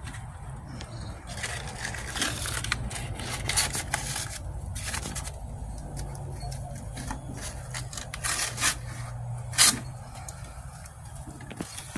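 Cardboard and charcoal handled and pushed down inside a metal barbecue grill: irregular rustling, scraping and crackling, with one sharp knock about ten seconds in. A steady low hum runs underneath.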